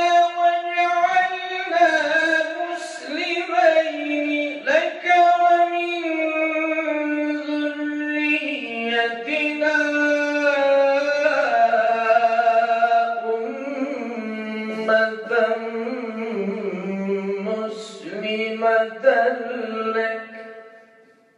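A man's solo melodic Quran recitation, one voice chanting long held notes with ornamented turns. The melody steps down to a lower pitch about eight seconds in, sinks lower again later, and fades out near the end.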